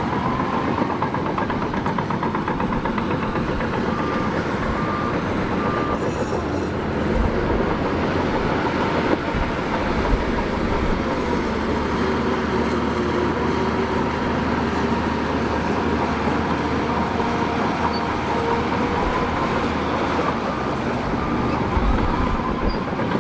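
Heavy vehicle engine running steadily, a dense even rumble with a faint tone riding over it.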